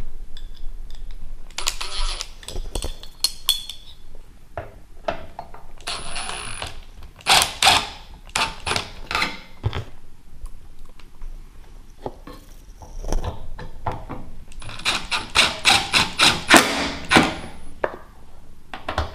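Milwaukee cordless impact driver driving screws into the steel mounting brackets of an electric fireplace, in short runs of rapid hammering: one about 2 s in, one about 6 s in, and a longer one near the end. Between the runs come single knocks and clunks of the metal brackets being handled.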